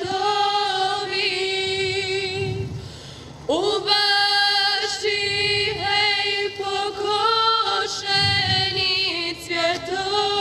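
Vocal music: a singing voice holding long, wavering notes. It drops away briefly about three seconds in, then comes back sliding up into the next note.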